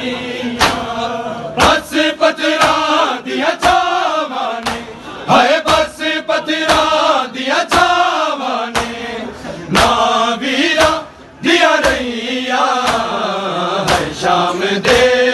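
Men chanting a Punjabi nauha (mourning lament) together, with the sharp slaps of hands striking bare chests (matam) keeping the beat. The chanting dips briefly about two-thirds of the way in.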